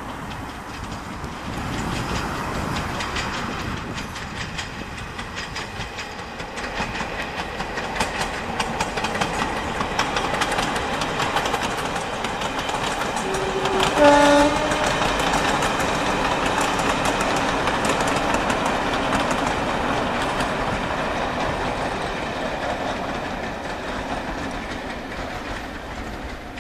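Diesel locomotives hauling passenger coaches past, engines running under a steady rumble with clicking of wheels over rail joints. About halfway a two-tone horn sounds, a higher note then a lower one, the loudest sound. The train noise fades near the end.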